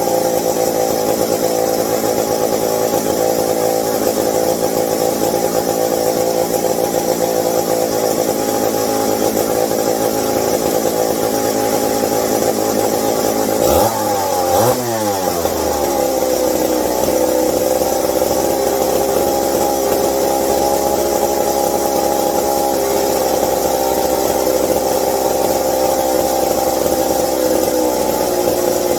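McCulloch 740 two-stroke chainsaw engine running steadily. About fourteen seconds in its pitch rises briefly and falls back before it settles again. The owner blames the carburetor: it runs lean or rich, floods and dies when the throttle is opened.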